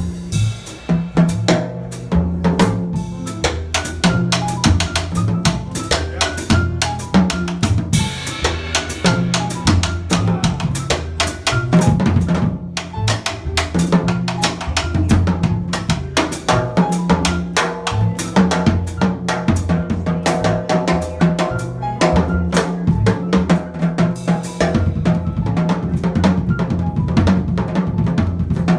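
Jazz drum kit played busily with sticks: fast snare, tom, bass drum and cymbal strokes, over an upright bass line and piano.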